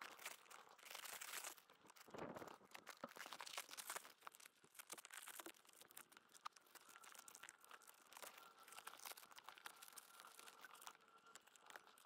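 Masking tape being ripped off and crumpled: faint, irregular crackling and tearing.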